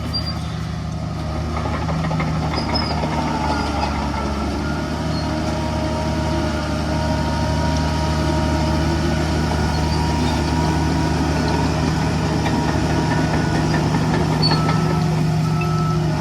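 Heavy diesel engine of earthmoving machinery running steadily, growing slightly louder, with a faint intermittent beep near the end.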